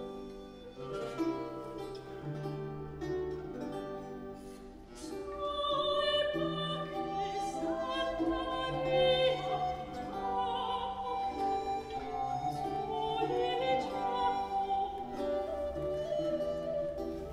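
Baroque chamber music played live: a recorder and a vihuela playing, joined about five seconds in by a soprano voice singing with vibrato over them.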